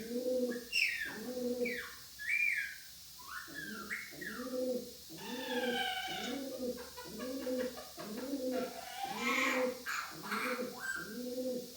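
Pet birds calling: a low cooing note repeated evenly, about every 0.7 seconds, under scattered high parrot chirps and whistles that slide up and down in pitch.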